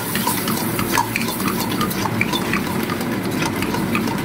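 A steel ladle scraping and clinking against a metal wok in many short strokes, stirring yogurt into a spiced onion-tomato masala that fries with a steady sizzle.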